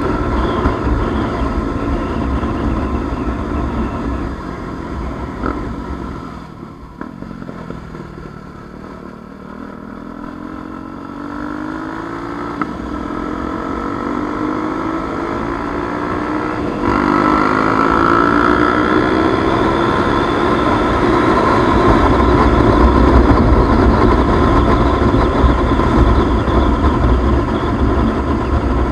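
Motorcycle engine while riding, with road and wind noise: the engine note falls and quietens as the throttle is eased for the first several seconds, then climbs steadily as the bike accelerates, stepping up sharply in loudness a little past halfway and running hard to the end.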